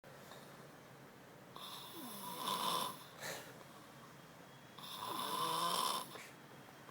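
Snoring: two long snores about three seconds apart, each with a pitch that slides down.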